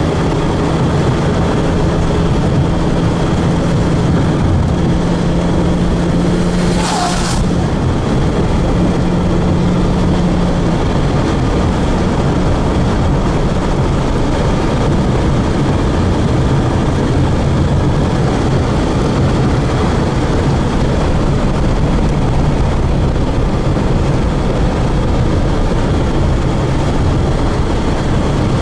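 Steady road and engine noise inside a moving car, with a low hum through the first ten seconds or so and a short swish about seven seconds in.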